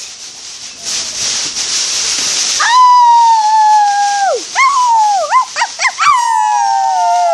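A child howling like a wolf: a long held howl that drops in pitch at its end, a few short wavering yelps, then another long slowly falling howl near the end. Steady hiss comes before the first howl.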